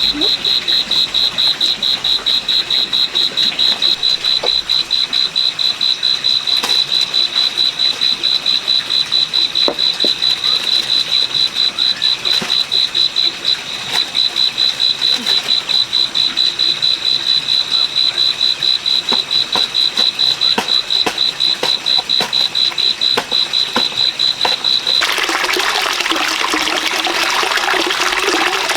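High-pitched insect chirping in a fast, even pulse, several chirps a second, running steadily. About 25 seconds in it stops and gives way to the even rush of running water.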